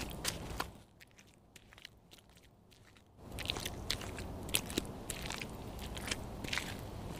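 Irregular crunching clicks and scrapes of steps on a gritty dirt path, over a low rumble. The sound drops away about a second in and picks up again after about three seconds.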